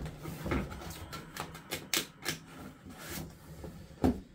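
Cardboard box being handled on a table: a run of small clicks, taps and scrapes, with sharper knocks about two seconds in and again near the end.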